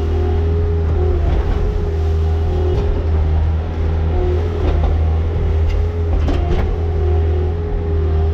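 An engine running steadily at a constant speed, with a few light knocks or clicks over it.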